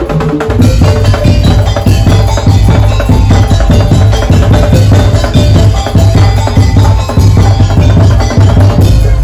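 Madurese daul percussion music: drums and wooden slit drums beating a fast, dense rhythm over a heavy bass drum, with the melody mostly dropping out for a percussion break.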